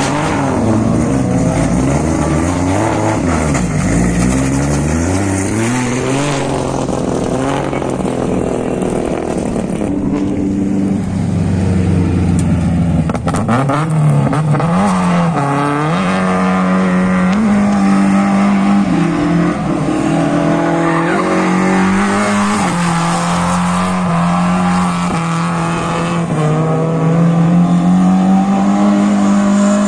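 Toyota AE86 Corolla drifting, its engine revved hard. The pitch climbs and drops through the first few seconds, then is held high and fairly steady, with the tyres squealing as the car slides.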